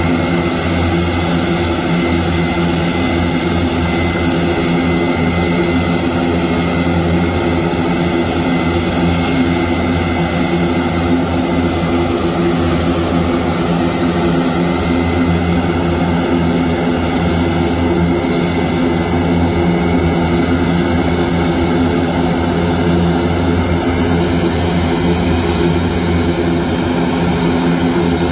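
Airbus A400M's four turboprop engines running as it taxis, eight-bladed propellers giving a loud, steady drone with a layered hum.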